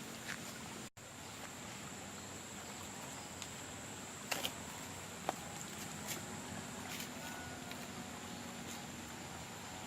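Steady high-pitched insect drone over outdoor ambience, with a few faint clicks scattered through it and a brief dropout of all sound about a second in.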